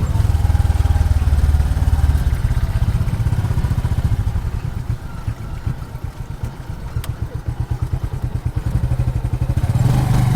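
Motorcycle engine of a tricycle running under way, its rapid firing pulses easing off midway and picking up again near the end.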